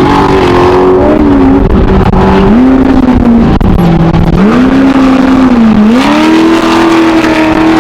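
Class 1 off-road race car's engine revving hard, its pitch dipping and climbing back up several times as the throttle comes off and on.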